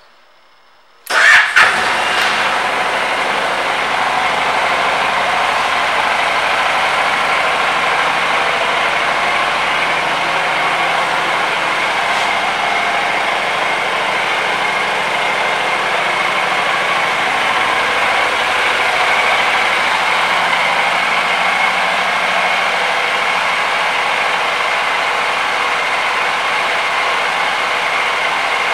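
A Honda CTX700N's 670 cc parallel-twin engine is started with a brief crank about a second in and catches at once. It then idles steadily through its stock exhaust.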